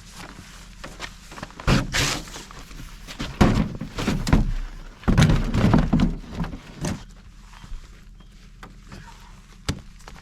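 Thumps, knocks and rustling from gear being handled, in several clusters over a few seconds, with one sharp click near the end.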